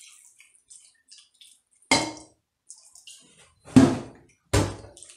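Water poured from a glass jug into a cooking pot trickles faintly, then three sharp knocks about two, four and four and a half seconds in as the jug is set down and the pot is handled on the countertop.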